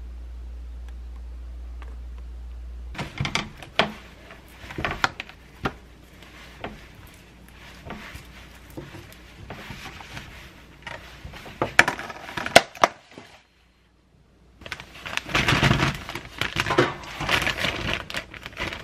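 A low steady hum for about the first three seconds, then handling noises as cherry tomatoes are picked out of a plastic container and dropped into a metal mesh strainer: irregular clicks, knocks and rustles. After a brief gap, a clear plastic zip bag crinkles as the tomatoes are bagged.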